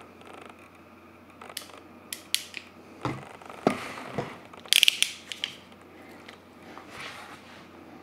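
Weidmüller PZ 10 HEX ratcheting crimp tool crimping a bootlace ferrule: a run of ratchet clicks from about a second and a half in, with the loudest cluster of clicks about five seconds in.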